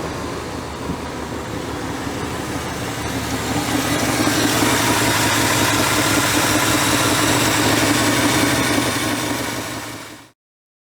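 1986 Chevrolet Caprice's engine idling steadily, a little louder from about four seconds in, then fading out near the end.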